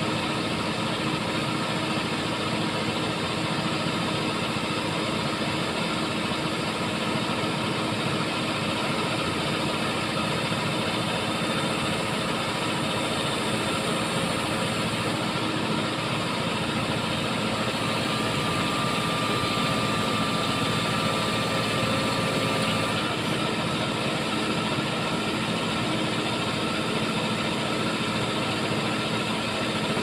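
Diesel engine of a Lovol backhoe loader running steadily while it works its hydraulics to climb down off a dump truck, with a faint high whine for a few seconds past the middle.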